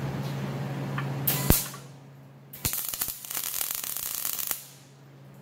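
MIG welder arc crackling as bar stock is welded onto a combine's steel key stock grate, the machine a Lincoln Power MIG 200. A short burst comes about a second in, then a steady run of crackle lasting about two seconds that cuts off sharply.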